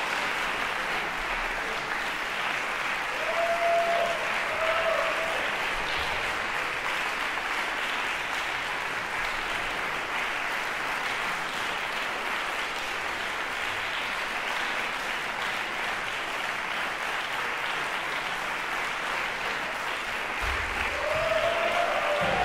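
Concert audience applauding steadily, with a few short cheers rising above the clapping about four seconds in and again near the end.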